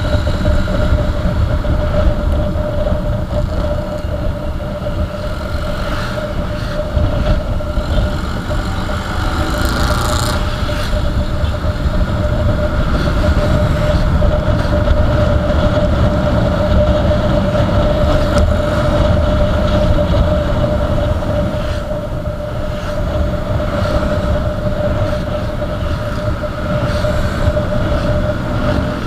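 Motorcycle engine running at a steady cruise, a constant drone over heavy road and wind rumble.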